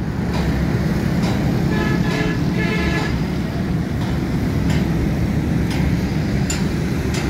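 Steady rumble of busy road traffic, with auto-rickshaws, motorcycles and cars passing below. A vehicle horn toots twice, about two and three seconds in.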